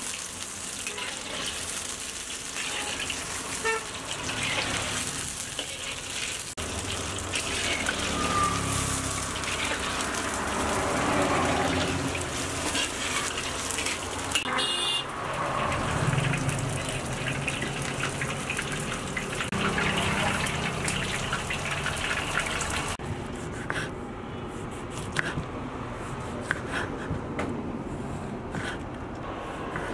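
Chicken pieces deep-frying in hot oil in a wok, a steady sizzle. In the last several seconds it gives way to a knife slicing limes on a wooden chopping board, a run of short taps.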